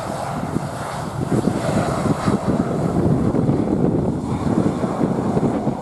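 Jet engines of a Boeing 737-900ER rolling down the runway after touchdown: a steady, rough rumble, mixed with wind buffeting the microphone.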